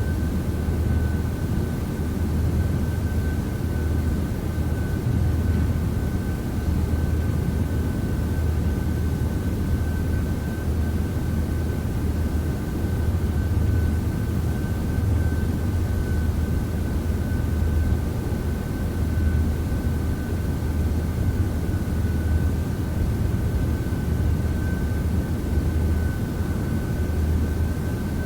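Steady, unchanging low mechanical drone with a thin, constant whine above it.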